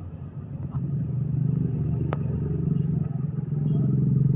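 Steady low engine rumble that grows louder about a second in, with one sharp click a little past the middle.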